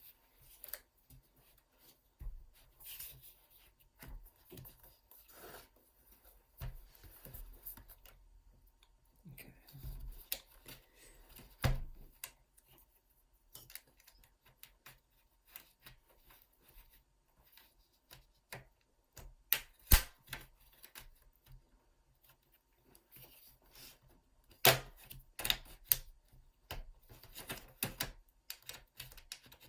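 Irregular clicks, taps and scrapes of a plastic pry pick working along a laptop's plastic casing to wiggle its clips loose, with a few sharper, louder clicks along the way.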